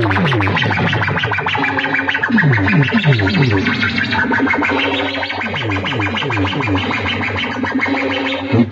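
Loud electronic DJ music played through a bank of horn loudspeakers: repeated falling pitch sweeps over a fast, distorted stuttering beat.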